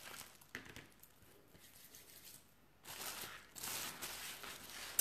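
Clear plastic wrapping around a lump of sugarpaste rustling and crinkling as it is handled. There is a short tap about half a second in, and the longest rustle is in the last two seconds.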